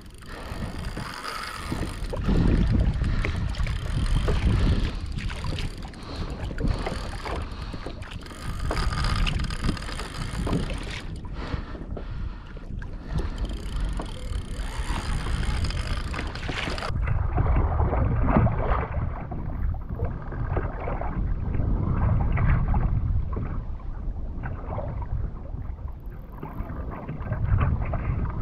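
Water sloshing and slapping against a kayak's plastic hull in an ocean swell, with wind buffeting the microphone. About two-thirds of the way through the sound turns duller as the higher hiss drops away.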